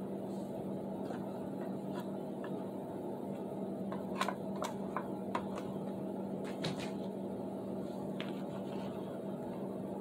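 A steady low hum throughout, with a handful of light clicks and taps between about four and seven seconds in.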